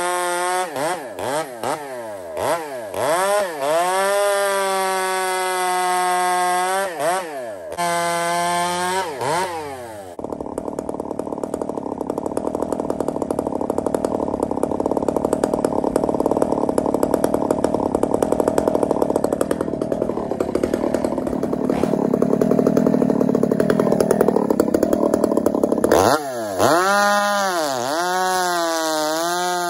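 Two-stroke chainsaw bucking logs, its revs dipping under load and rising again cut after cut for about ten seconds. Then about sixteen seconds of steadier, lower-pitched running follow. Near the end the revs rise and fall again as it cuts once more.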